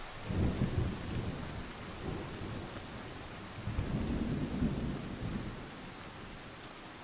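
Thunder rumbling in two rolls, the first about a second in and a longer one around four seconds in that dies away, over a steady hiss of rain.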